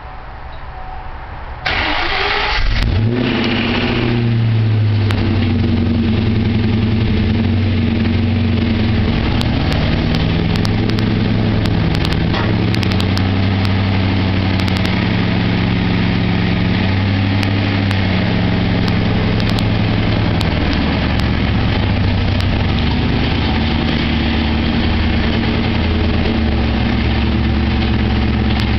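1996 Ford Mustang GT 4.6-litre V8 cranked by its starter, catching about three seconds in, revving briefly and then settling to a steady idle through a Flowmaster cat-back exhaust. It runs with a knock, which turned out to be a low-quality aftermarket crank pulley shifting on the front of the crankshaft.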